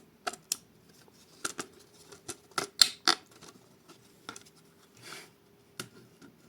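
3D-printed plastic hexagon boxes being fitted together by hand: an irregular series of sharp plastic clicks and taps, loudest about three seconds in, with a brief scrape about five seconds in.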